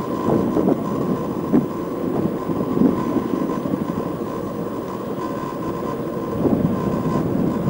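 Steady low rumble of a passing vehicle, with a faint steady high tone above it.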